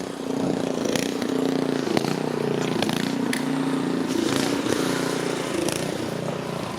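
A small engine running steadily at a fairly even speed, with a few faint clicks over it.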